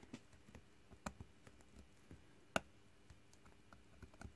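Faint, scattered light clicks and ticks from soldering work at the leads of a fine-pitch IC, as the iron tip is pressed between the pins to clear a solder bridge; one sharper click about two and a half seconds in.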